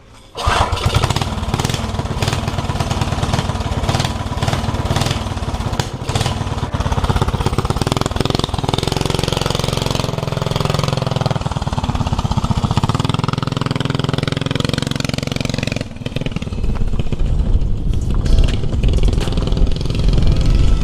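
Five-horsepower flathead Briggs & Stratton single-cylinder engine on a mini bike, with its governor removed and a homemade exhaust header, firing up about half a second in and running with rapid firing pulses. It dips briefly at about 16 seconds, then runs louder again.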